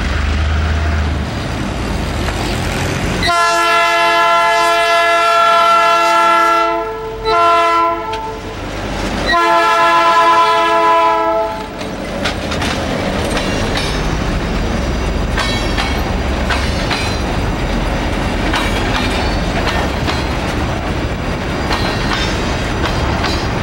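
EMD GR12 diesel locomotive approaching with its engine running. It sounds its multi-tone horn three times, long, short, long, then passes close by. A train of empty ore hopper cars follows, rolling past with the clatter of wheels over rail joints.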